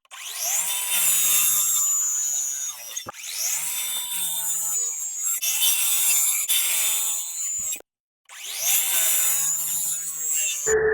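Electric circular saw spinning up with a rising whine and cutting through poplar boards, heard in four edited-together cuts.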